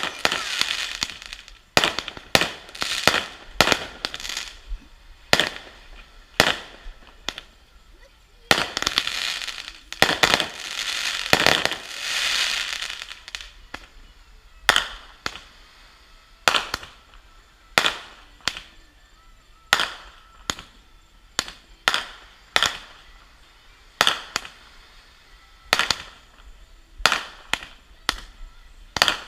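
Consumer fireworks going off in a steady run of sharp bangs, roughly one a second, each dying away quickly. A denser stretch of crackling comes about a third of the way in.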